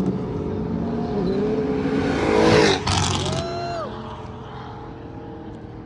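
A car driving past with its engine pulling hard, loudest about two and a half seconds in, then the throttle drops off suddenly and a brief whistle rises and falls before the sound fades away.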